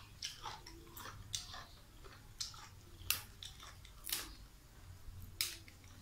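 A person eating with sharp, irregular clicks and smacks of chewing, along with fresh leaves being picked and folded by hand. The loudest clicks come about three, four and five and a half seconds in.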